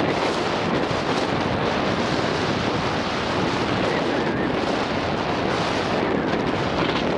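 Steady rush of wind buffeting a Garmin VIRB 360 action camera's microphone as a mountain bike descends an enduro stage at race speed, mixed with the rolling noise of the bike on the trail.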